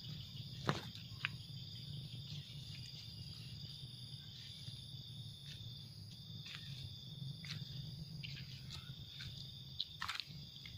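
Night insects, crickets, chirping steadily: a continuous high trill with a pulsing, even higher trill above it, over a low steady hum. A few short sharp clicks are scattered through.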